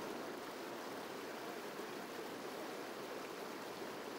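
Fast water rushing and churning over a shallow rocky ledge, a steady, even rush.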